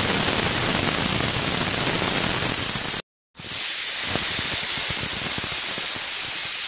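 Pressure cooker hissing steadily as steam vents under pressure. A brief cut about three seconds in; after it the hiss goes on a little weaker, with faint crackles.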